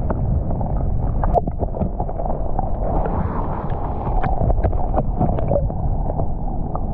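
River current heard from a submerged camera: a muffled, steady low rush of water, with scattered small clicks and knocks.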